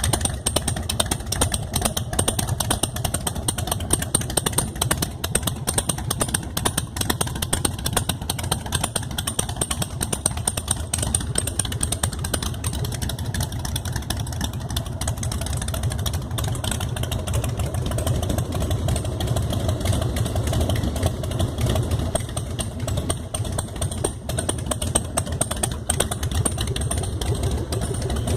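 Carbureted Harley-Davidson Softail 1450 cc V-twin engine running steadily at an even idle, with a dense low pulsing and no revving.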